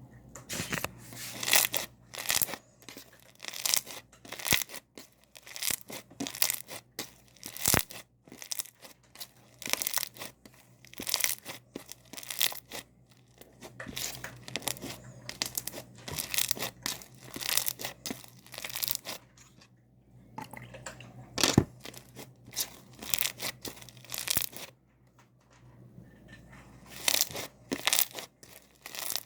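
Sticky slime being worked in a plastic container, giving repeated bursts of wet crackling and tearing, with short pauses between them.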